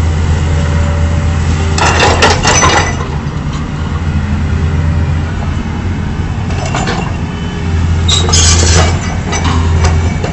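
Caterpillar excavator's diesel engine running with a steady low hum while its breaker attachment smashes into a concrete-and-brick wall. There are bursts of cracking and clinking from breaking masonry and falling rubble about two seconds in, around seven seconds, and again near eight to nine seconds.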